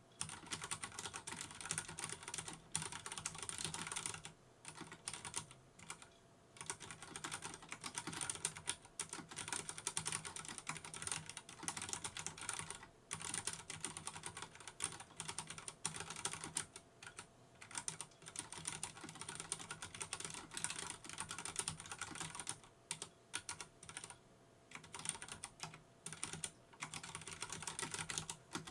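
Typing on a Vortex Race 3 RGB mechanical keyboard with Cherry MX Brown switches: a rapid, continuous run of key clicks with a few short pauses.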